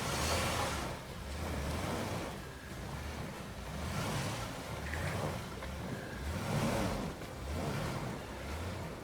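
Toyota FJ Cruiser's V6 engine rising and falling in repeated surges, under a rushing noise that swells and fades with it every second or two.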